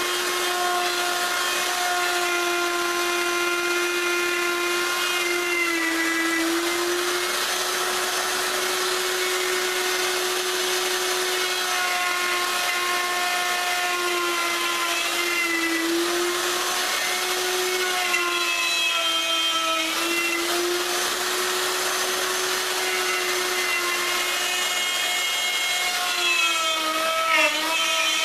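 Wood router running steadily, its bit cutting a radius along a solid maple edge. The motor's pitch sags briefly several times as the bit takes load, about six, sixteen and twenty seconds in, and wavers near the end.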